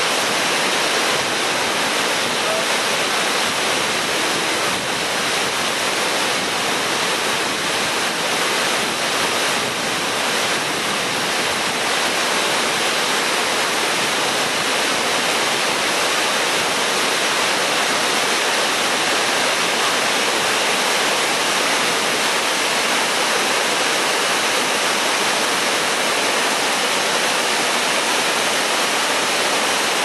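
Tvinde waterfall's water crashing down a tall stepped rock face, a loud, steady rush of falling water with no let-up.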